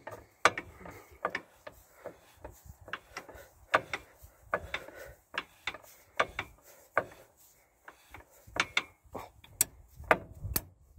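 Tractor hitch linkage rod being screwed out by hand: a run of irregular metallic clicks and clanks as the threaded rod is turned.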